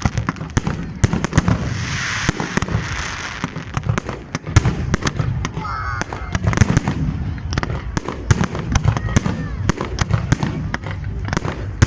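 Aerial fireworks going off in rapid succession: many loud bangs and booms, with a crackling shimmer about two seconds in and brief whistles around six seconds in.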